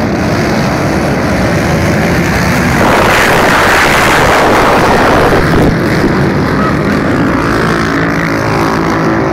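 A pack of racing ATVs (quad bikes) launching together from a mass start, many engines revving hard at once. The noise is loudest about three to five and a half seconds in as the quads pass close, then eases into a steadier engine drone as they pull away.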